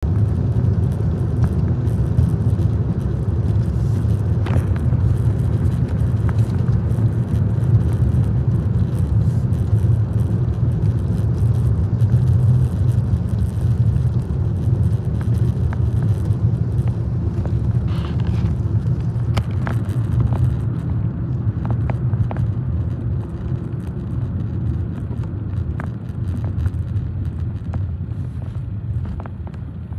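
Road and engine noise heard inside a moving car: a steady low rumble that eases off over the last few seconds as the car slows.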